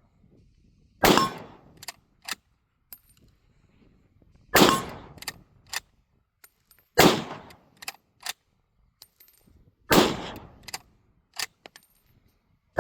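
Swiss K31 rifle in 7.5 Swiss firing four shots a few seconds apart, each followed by echo, with short clicks between shots as the straight-pull bolt is cycled.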